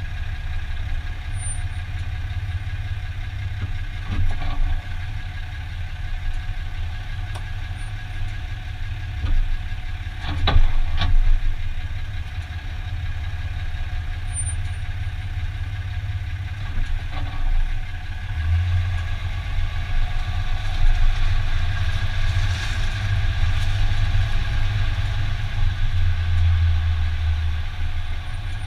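Heavy-duty pickup truck's engine running at low speed with a steady low rumble, and a pair of sharp clunks about ten and eleven seconds in, the drivetrain noise this Ram 2500 makes when parking.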